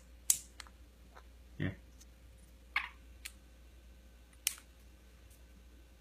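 Monk parakeet's beak pecking at rice on a wooden tabletop and fingers: about eight sharp clicks and taps, spaced irregularly, the loudest near the start.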